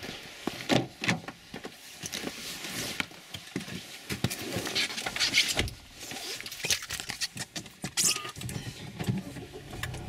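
Footsteps in snow and a car's driver door being opened, then someone climbing into the seat: a string of irregular clicks, knocks and rustles.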